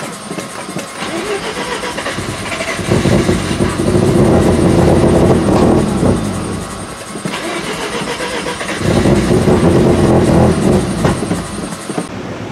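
Starter cranking a 1988 Mazda RX-7's turbo rotary engine on a jump start, in two long bursts a few seconds apart, without the engine catching.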